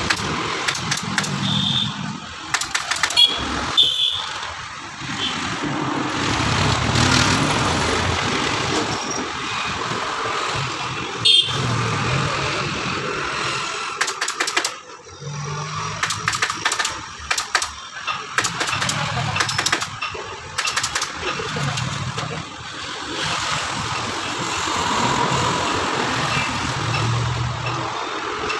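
Passing street traffic: scooters and motorcycles running by, their engine hum rising and fading. A few sharp clicks stand out over it, around three to four seconds in and again near eleven seconds.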